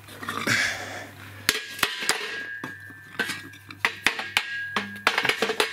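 Metal parts clanking and clinking as they are handled, in a string of sharp knocks starting about a second and a half in, with one piece left ringing for several seconds.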